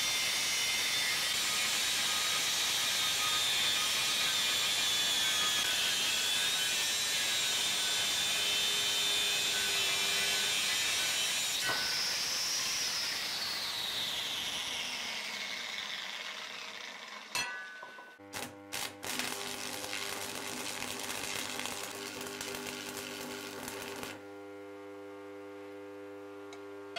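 Angle grinder cutting through steel box section, its high whine steady under the grinding for about twelve seconds. It is then switched off and the whine falls away as the disc spins down. After that come a few sharp clicks and a steady hum.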